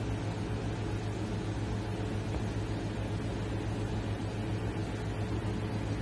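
A steady low machine hum with an even hiss, unchanging throughout.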